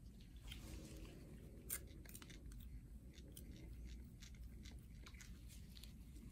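Faint crinkling and scattered small clicks of gloved hands handling gauze while a leg wound is wiped clean, with one sharper click just under two seconds in.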